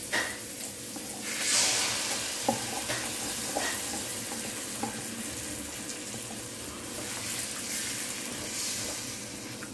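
A hot wok sizzling as a red sauce is poured in over sautéed onions and chili paste, the hiss surging about a second and a half in. A spatula stirs the sauce, with a few light knocks against the pan.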